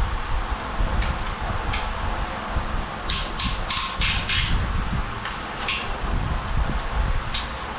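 Hand tools working on the cylinder-head bolts of a VW 1.8T engine: a run of sharp metallic clicks about three seconds in and a few single clicks, over a steady low rumble.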